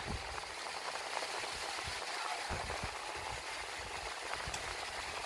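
Steady hiss of background noise, with a few soft low thumps about two and a half seconds in.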